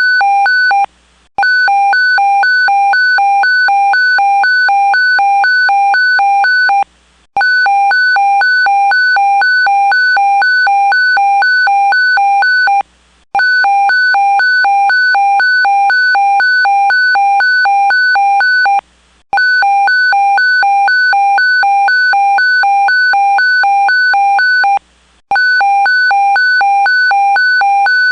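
Electronic evacuation alarm of the earthquake-alert kind: a loud pulsing beep, about two beeps a second. It sounds in runs of about five and a half seconds, broken by short pauses of about half a second.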